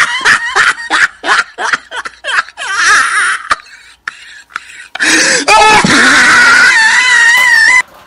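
A voice cackles in quick laughing bursts for about three seconds. After a short pause it lets out a long, loud, wavering wail that cuts off suddenly shortly before the end.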